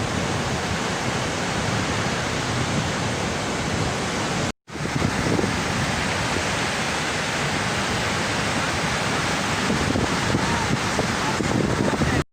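Sea waves washing onto the beach, with wind buffeting the microphone. The sound drops out completely for a moment about four and a half seconds in.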